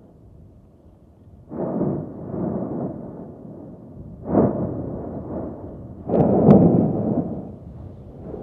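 Strombolian explosions at Etna's Southeast Crater: three sudden deep booms, each rumbling away over about a second. The last is the longest and loudest.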